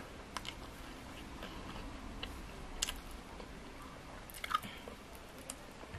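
Close-miked chewing with a few sharp, crisp crunches and clicks as a crispy grilled egg-filled frog is torn apart and eaten. The loudest crunch comes about four and a half seconds in.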